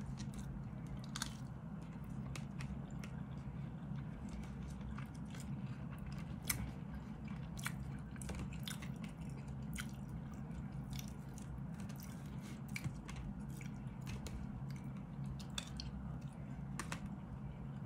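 Close-up chewing and mouth sounds of a person eating rice and ham, with scattered sharp clicks and taps of a plastic fork and spoon in a plastic food container, over a steady low hum.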